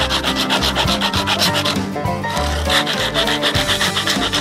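Top of a tin can scraped back and forth on a rough flat rock, a fast rasping grind of several strokes a second, wearing through the lid's rolled seam to break the seal. Background music with steady low notes runs underneath.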